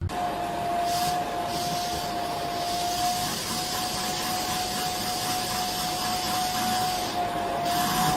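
A motor-driven appliance running: a steady whine over a rushing air noise, starting abruptly.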